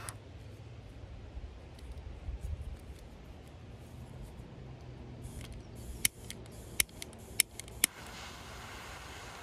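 About four sharp clicks in quick succession, roughly six to eight seconds in, from the igniter of a handheld torch being clicked to heat shrink tubing, over a low steady rumble.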